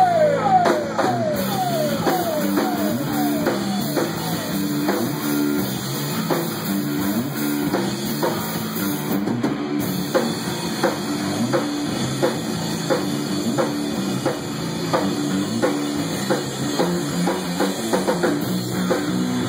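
Rock band playing an instrumental passage: a steady drum-kit beat under bass and guitar, with a run of quick falling notes in the first second.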